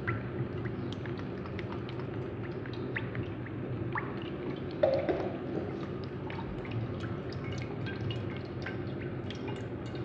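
Cooking oil poured in a steady thin stream into a pan, with small scattered drips and splashes and one brief louder splash about five seconds in.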